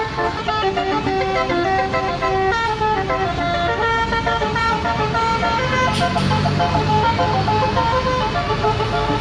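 Indonesian bus 'telolet' horn playing a fast melodic tune of short pitched honks. A low engine hum comes up underneath about halfway through.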